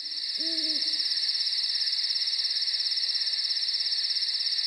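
Night-time ambience sound effect: a steady chorus of crickets chirping in a fast pulsing trill, with a single owl hoot about half a second in.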